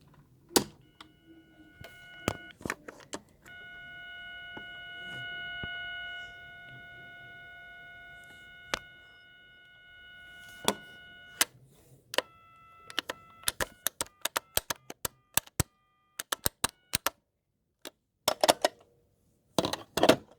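Ringtone sound effect played through a smartphone speaker: a steady electronic tone, short at first and then held for about eight seconds, followed by a run of short beeps at shifting pitches. Sharp clicks are scattered throughout, and a few brief bursts of noise come near the end.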